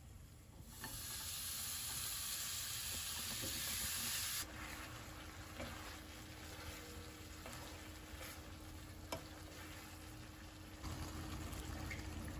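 Food sizzling in a frying pan as it is stirred. The loud sizzle cuts off sharply about four and a half seconds in, and a quieter sizzle follows with scattered clicks of a utensil against the pan.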